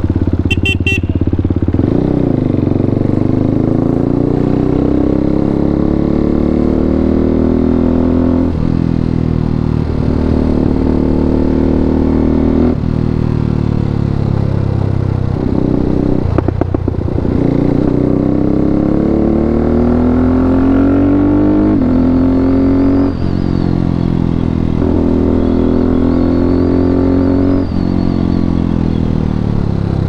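KTM RC 390's single-cylinder engine through a full Akrapovic exhaust system, ridden on the road. Its note climbs slowly in pitch for several seconds at a time and then drops abruptly, about six times, as it pulls through the gears.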